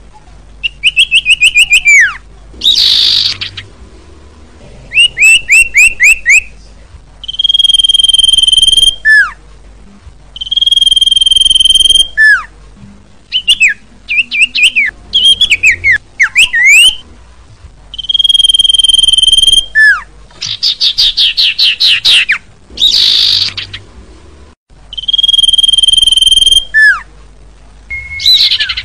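Common iora song, loud: long steady whistles, each ending in a quick downward slur, alternating with fast trills of rapid notes, in phrases repeated every couple of seconds.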